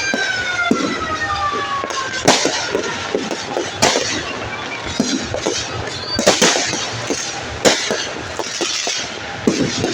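Fireworks going off: five sharp bangs spaced about one and a half to two and a half seconds apart, each followed by a crackling hiss. A whistle glides down in pitch over the first two seconds.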